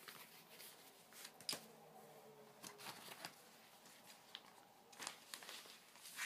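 Faint rustling and a few light taps of cardboard vinyl record jackets being handled and set aside, the sharpest tap about one and a half seconds in.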